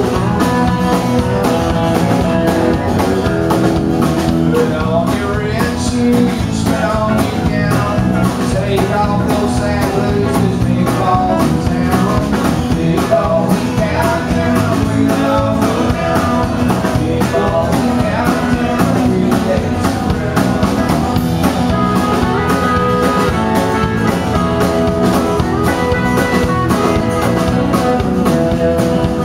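Live country band playing: strummed acoustic guitar, Telecaster electric guitar, electric bass and drum kit, over a steady beat.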